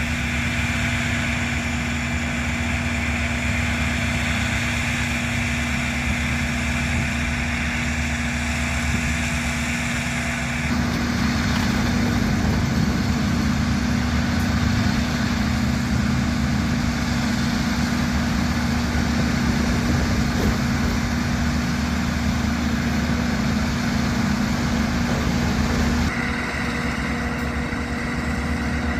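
Engines of heavy rail-work equipment, a track maintenance machine and a Case backhoe, running steadily with a constant low drone. The engine sound changes abruptly about eleven seconds in and again near the end.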